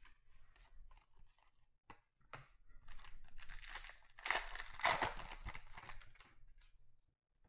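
Foil wrapper of a 2020 Panini Contenders Baseball pack torn open and crinkled, loudest about four to five seconds in. Before it come short rustles and clicks of cards being handled.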